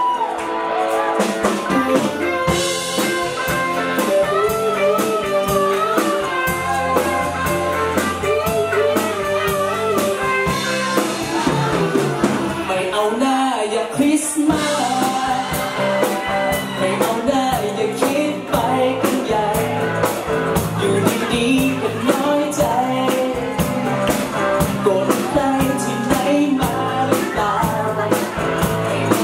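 Live band playing a pop song: a man sings lead over electric guitar and keyboard, with a steady beat.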